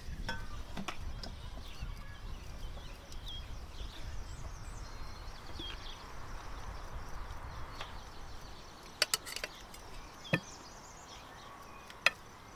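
Outdoor ambience: a steady low rumble for the first several seconds with a few faint short chirps, then four or five sharp clicks or knocks in the last few seconds.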